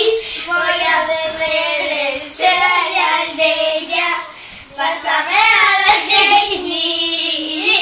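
Young girls singing a song together, with a brief pause a little past halfway.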